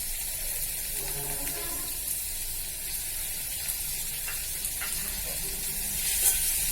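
Steady sizzling and hissing of hot oil in a kadai as wet, freshly rinsed chopped lachakottai greens fry with softened small onions, the leftover rinse water spitting in the oil.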